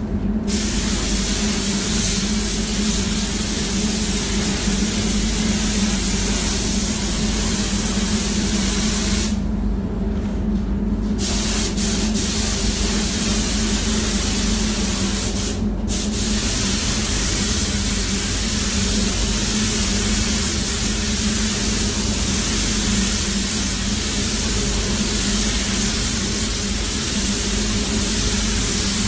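Air-driven gravity-feed paint spray gun hissing steadily as it sprays paint, the hiss stopping for about two seconds around nine seconds in and again briefly near sixteen seconds as the trigger is released. A steady low hum runs underneath.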